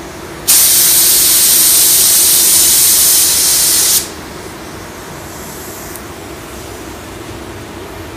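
Paint spray gun triggered for one spray pass, a loud, even hiss of atomizing air and paint lasting about three and a half seconds that starts and cuts off abruptly.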